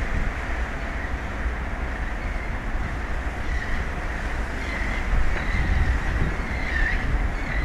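Wind buffeting an outdoor microphone: a steady low rumble and rushing noise, with a few faint high squeaks near the end.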